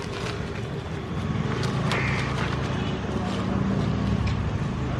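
A motor vehicle's engine running, a steady low hum that grows louder about a second in, with scattered clicks and knocks over outdoor noise.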